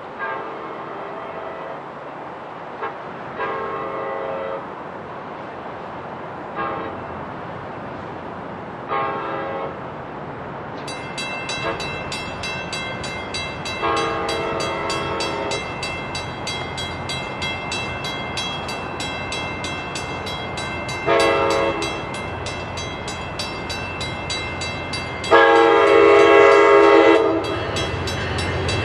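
Cab car of a bi-level passenger train sounding its multi-note horn in a series of blasts as it approaches: two long, a short, a long, then three more, the last the longest and loudest near the end. From a little before halfway a bell rings rapidly and steadily over the horn, and the rumble of the train grows as it nears.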